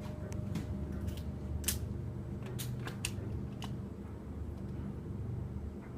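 Scattered short sharp clicks, about seven in the first four seconds, over a steady low background rumble.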